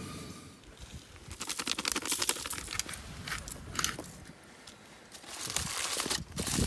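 Aluminium foil being folded and crumpled by hand, crinkling in two spells, the second starting about a second before the end.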